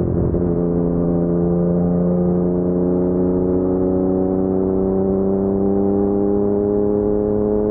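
Yamaha MT-09's crossplane three-cylinder engine running through an Akrapovic full-system exhaust, heard while riding. The engine note holds steady, its pitch creeping slowly up as the bike gently gathers speed.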